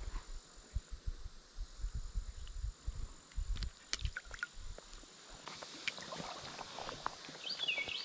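Uneven low thumps and rumble of hands handling the rod and a small sunfish while it is unhooked, with a few sharp clicks from the tackle about halfway through. A faint, steady high insect buzz fades out after about five seconds. Near the end a bird chirps a quick stepped run of notes.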